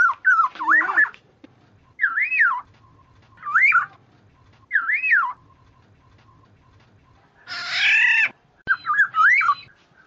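Oriole (kepodang) calling: short, fluty whistled phrases that rise and fall, repeated every second or so, with one harsher, nasal squawk about three quarters of the way through.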